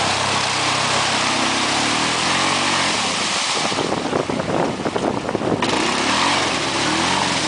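Quad (ATV) engine, a Yamaha Grizzly 700 single-cylinder, running under throttle and revving up and down, with a rougher, choppier stretch in the middle.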